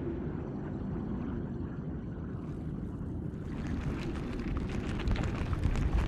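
Low, steady underwater rumble, joined about three and a half seconds in by a crackling hiss with small clicks that grows toward the end.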